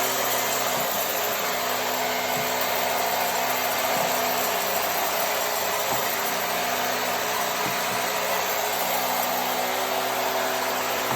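A small electric motor running steadily, with a constant hiss and a steady whine.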